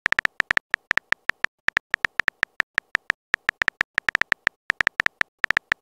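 Typing sound effect: a fast, irregular run of short, high clicking ticks, several a second, with brief pauses between bursts.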